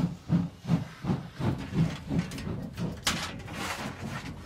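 Class 41 steam locomotive 41 1150 pulling away, its two-cylinder exhaust chuffing in an even beat of nearly three a second amid hissing steam. About three seconds in, the chuffing gives way to a steady hiss.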